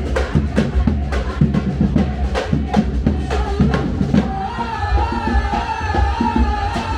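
Samba-reggae street drumming by a percussion group, with deep bass drums and sharp rapid drum strokes in a steady groove. About four seconds in, a long held tone joins over the drums.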